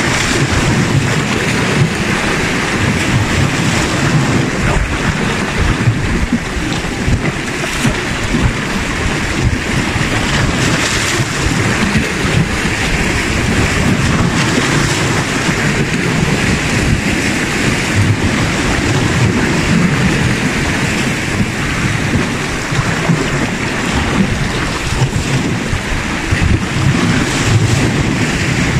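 Sea waves washing and splashing against shore rocks, a continuous rush of surf, with a low gusty rumble of wind on the microphone.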